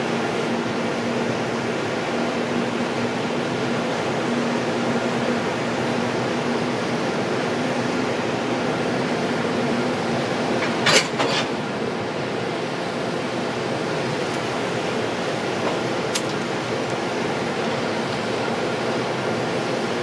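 Steady fan-like whir and hum of a standing EF510 electric freight locomotive, its cooling blowers running. A steady tone in the hum stops about halfway through, and just after it come two short hisses close together.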